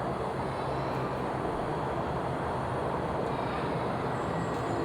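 Steady background rumble of street or vehicle ambience with a faint low hum.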